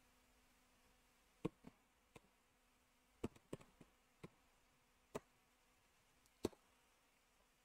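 Faint, sparse computer keyboard keystrokes: about ten single key clicks at irregular intervals as a command is typed, over a faint steady low hum.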